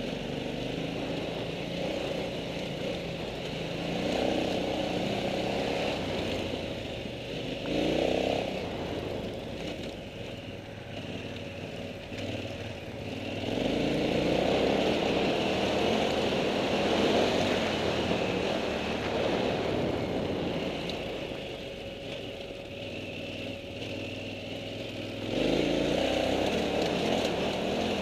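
Motorcycle engine heard from on board, pulling harder and easing off by turns as the throttle changes, loudest from about halfway and again near the end.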